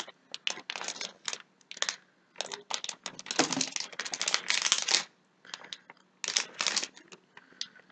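Shiny plastic Shopkins blind-pack wrapper crinkling in a child's hands as it is opened: irregular rustling bursts for about five seconds, then a short pause and a few more.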